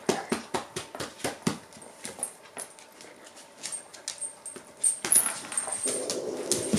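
Bull mastiff and shiba inu play-fighting: a quick run of short snorts, grunts and scuffles, about three or four a second at first and sparser later, with a louder burst about five seconds in and a steadier dog sound starting near the end.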